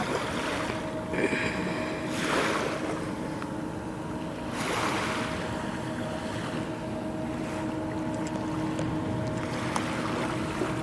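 BC Ferries Salish-class ferry MV Salish Orca running away across the water, its engines a steady low drone. Small waves wash on the shore under it, swelling twice.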